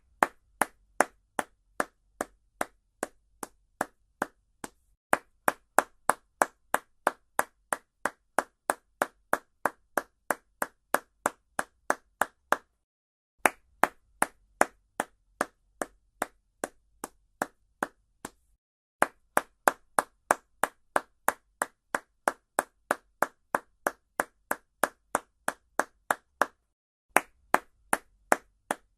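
Single hand claps at a steady pace of about three a second, in runs of several seconds with short breaks between them; each run starts loud and gets softer.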